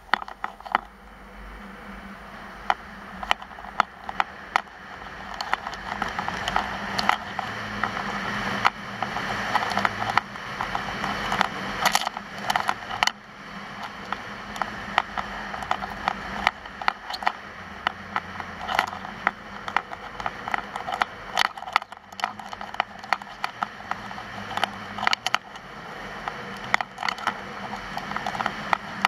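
Skis sliding and scraping over groomed piste snow on a downhill run, a steady hiss that swells and fades, with frequent sharp clicks and knocks throughout.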